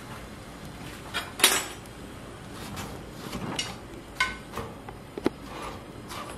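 Metal cookware clinking and clattering on a gas stove: a tawa and metal tongs knock against the burner grate while a naan is turned over the flame, with a loud clank about one and a half seconds in and a few lighter, ringing clinks later.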